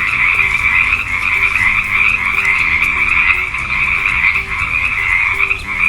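Frog croaking, a dense, unbroken sound.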